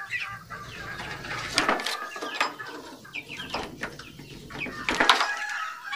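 A pen of young chickens clucking and cheeping, many short calls overlapping. Two sharp clacks stand out, about one and a half seconds in and again about five seconds in.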